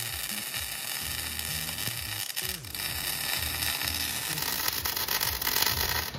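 MIG welding arc from a Hobart Ironman 230 welder crackling and sizzling steadily as a bead is run on steel, with a brief break about two and a half seconds in. The arc cuts off suddenly at the end.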